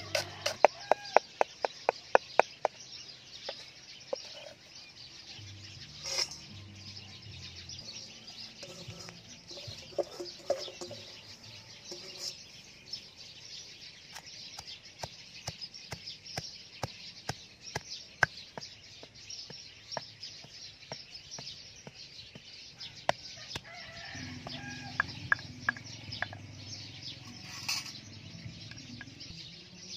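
Cleaver chopping pandan leaves on a wooden chopping board, a rapid run of sharp knocks over the first few seconds, then a wooden pestle pounding the cut leaves in a stone mortar with scattered knocks.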